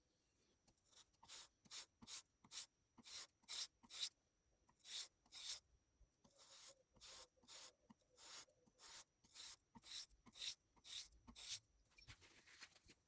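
Steel chisel rubbed back and forth on 400-grit sandpaper laid flat on glass: short, even scratching strokes about three a second, with two brief pauses.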